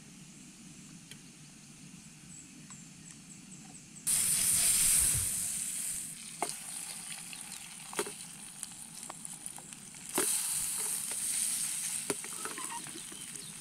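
Food frying in a hot pan: a loud sizzle flares up suddenly about four seconds in and again about ten seconds in, easing off between, with sharp clicks of a utensil against the pan.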